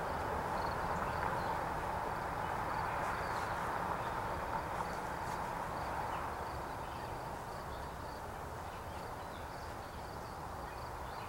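Rumble and wheel noise of a CSX train moving away, slowly fading. Faint insect chirps repeat steadily over it.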